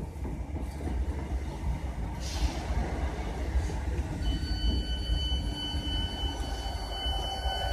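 Class 321 electric multiple unit pulling into the platform to stop, with a steady low rumble of wheels on track. About four seconds in, a steady high-pitched squeal of several tones comes in.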